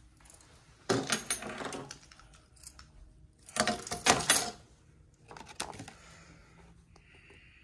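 Hand handling things on a hotel drinks tray: two bursts of clattering and rustling, then a lighter scraping rustle as a paper card is lifted off the tray.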